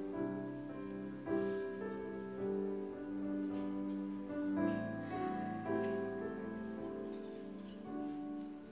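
Slow, quiet instrumental keyboard music: soft held chords that change about every second.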